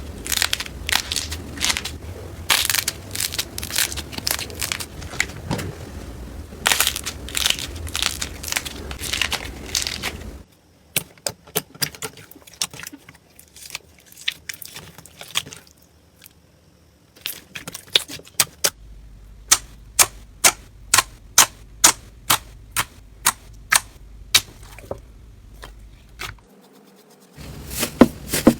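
Slime being squeezed and pressed, giving sharp crackling and popping clicks. The sound changes abruptly about ten seconds in and again near the end as one clip gives way to the next, and in the second half the pops come evenly, about two a second.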